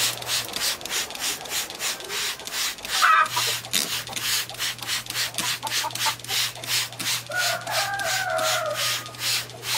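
Hand trigger sprayer misting water onto potting mix, pumped over and over at about four squirts a second, each a short hiss. A chicken calls once, drawn out, about three-quarters of the way through.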